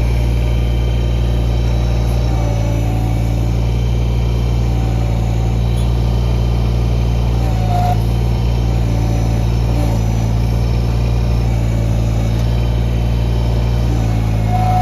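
Kubota BX24 compact tractor's three-cylinder diesel engine running at a steady speed.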